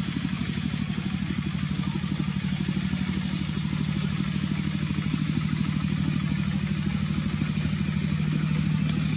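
A small engine running steadily at an even speed, with a fast, regular pulsing beat.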